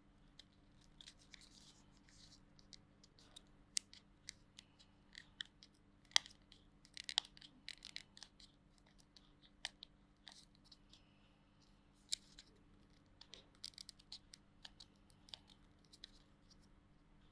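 Faint, irregular clicks and crackles of stiff plastic packaging being worked open by hand.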